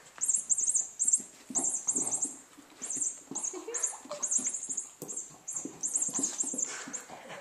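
Dog biting and chewing a squeaky cat toy: clusters of quick, high-pitched squeaks, several in each burst, repeating every half second to a second, with soft mouthing and chewing sounds underneath.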